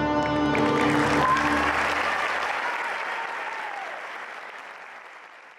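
Orchestral music ends on a held chord about two seconds in, with an audience's applause starting over it; the applause then fades away steadily.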